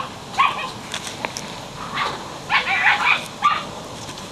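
Belgian Shepherd puppy giving a run of short, high-pitched yelps and whines, several in a row, clustered most thickly about two and a half to three and a half seconds in.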